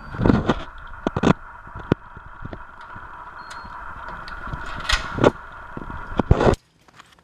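Footsteps and handling knocks while walking out of an elevator and through a card-access door, with a short high beep about halfway from the card reader and the lever handle and latch clunking as the door is opened, over a steady high hum. The sound cuts off abruptly near the end.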